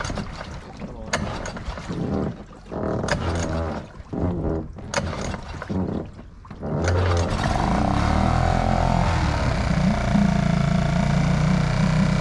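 Freshly serviced 2002 Yamaha 4 hp four-stroke outboard being pull-started: a few short bursts of cranking, then about seven seconds in the engine catches and runs steadily, now that fuel has reached it.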